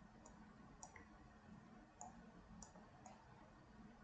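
Faint computer mouse clicks, about six spread irregularly, over quiet room hum.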